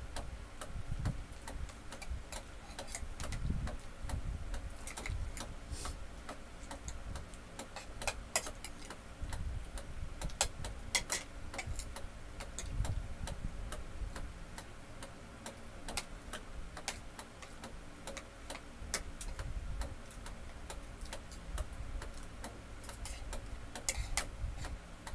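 Spoons and forks clinking and scraping on ceramic plates while eating, in irregular sharp clicks over a low, uneven rumble.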